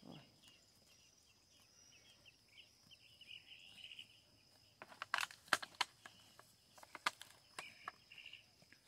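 Insects chirping in short repeated bursts over a steady high insect whine, with a cluster of sharp snaps and cracks about five seconds in and a few more near seven seconds.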